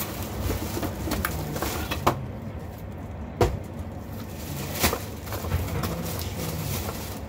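Cardboard box and plastic bag rustling and crinkling as a plastic-wrapped fan is pulled out of its box, with three sharp knocks, the loudest in the middle.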